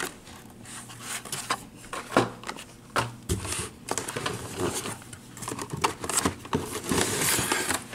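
Carded toy cars in plastic blister packs being handled and pulled out of a cardboard case: rustling of card and plastic with many small clicks and taps, busiest near the end.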